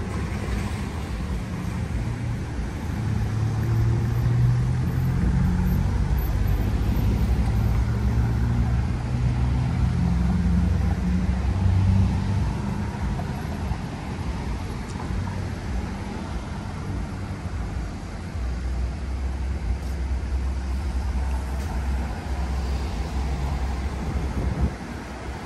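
Street traffic: low engine noise from passing cars, swelling louder from about three to twelve seconds in, then settling to a steadier low hum.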